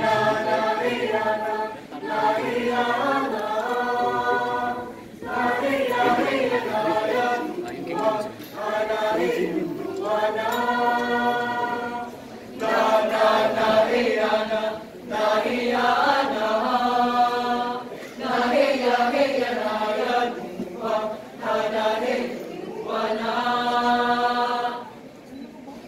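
Mixed choir of women and men singing a cappella in several-part harmony, in short phrases with brief breaks between them, closing on a held chord near the end.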